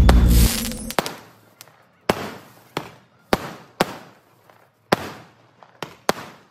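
Aerial fireworks going off. A heavy boom fades out about half a second in, then comes a string of about eight sharp bangs, roughly one every half second to second, each trailing off briefly.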